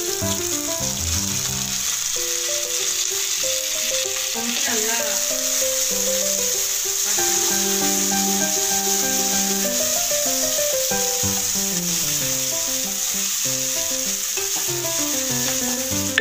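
Chopped onion, tomato and green chillies sizzling in hot oil in a non-stick kadai, stirred now and then with a spatula. A melody of background music plays over it.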